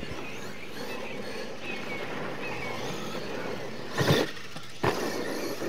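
Scale RC monster truck driving hard on dirt, its motor revving up and down, with two loud thumps about four and five seconds in as it hits a ramp and comes back down.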